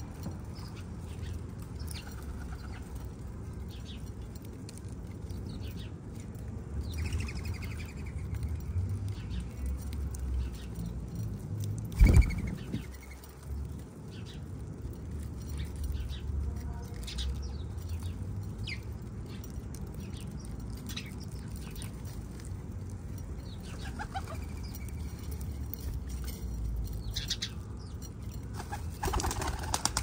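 Backyard birds at a seed feeder: wings flapping, with scattered short high chirps and ticks over a steady low rumble. A loud thump about twelve seconds in is the loudest sound, and there is another flurry near the end.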